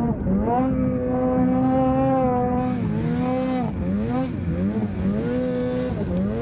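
Naturally aspirated Polaris RMK Khaos snowmobile's two-stroke engine revving under throttle: held high for about two seconds, then rising and falling about once a second.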